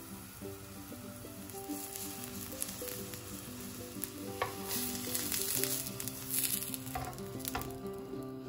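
Aubergine halves sizzling as they fry in hot oil. The sizzle grows louder past the middle, with a few sharp clicks of metal tongs, over background music.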